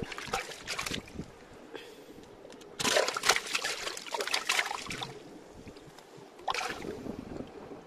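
Water splashing and sloshing as a string of caught fish on a rope stringer is moved about in shallow water among rocks. It comes in bursts: a short one at the start, a longer and louder one about three seconds in, and another near the end.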